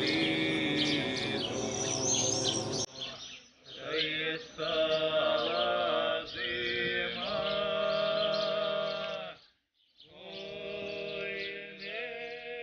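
Men singing a cappella in long, held, chant-like notes, with a short break about nine and a half seconds in.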